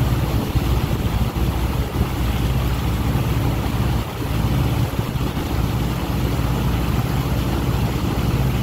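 Ferry boat's engine running steadily under way, heard from on board: a constant low drone with an even rushing noise over it.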